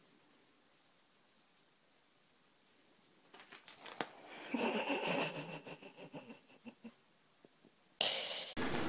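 Near silence for about three seconds, then faint scratching and rustling as a kitten claws its way up a person's jeans, with a short, soft breathy sound in the middle. About 8 s in, a louder steady hiss of background noise starts suddenly.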